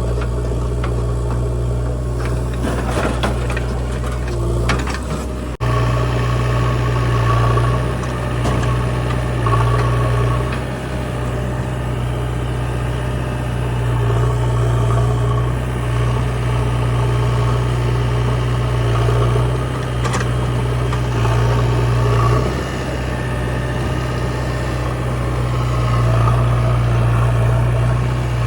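Heavy diesel engine running steadily, its note swelling and easing as it is loaded, with a spell of metallic clatter about three to five seconds in.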